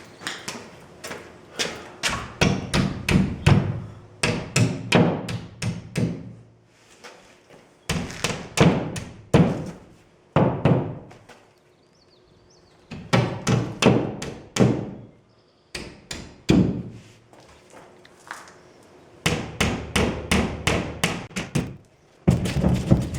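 Hammer blows striking boards in runs of quick strikes, several a second, broken by short pauses, as the fastened boards are knocked loose.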